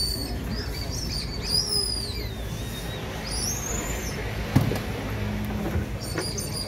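Background noise of a street-food stall, with several short high chirps that glide in pitch, and one sharp click about four and a half seconds in.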